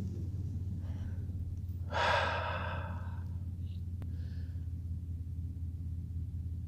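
Van engine and road noise humming low and steady inside the cab while driving a snowy road. About two seconds in comes a one-second breath out, with a faint click a little later.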